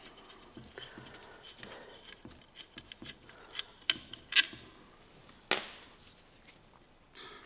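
Hand tools and metal saw parts being handled on a workbench: scattered light clicks and rubbing, with a few sharper metallic clinks about four to five and a half seconds in.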